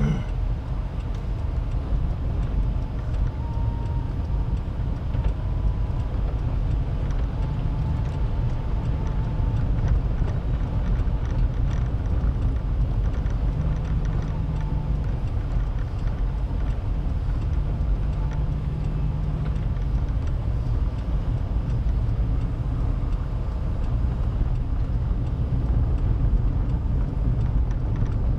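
Car driving on a rough dirt and gravel road, heard from inside the cabin: a steady low rumble of tyres and engine.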